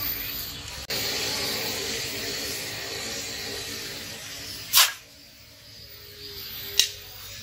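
Coal forge fire hissing steadily while a blade heats in it, followed by two sharp knocks, the first about five seconds in and the louder, a lighter one near the end.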